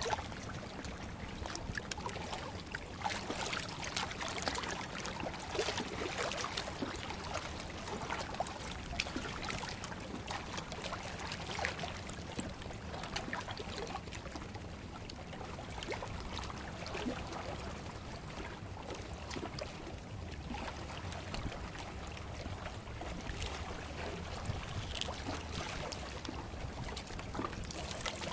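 Seawater sloshing and trickling against concrete breakwater blocks, with scattered small clicks and knocks.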